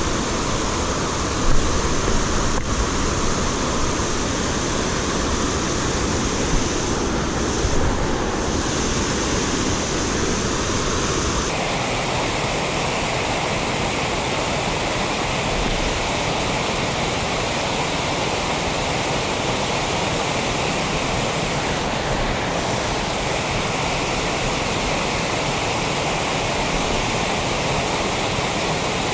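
Steady rush of flowing creek water, an even noise without pauses; its tone shifts abruptly about a third of the way through.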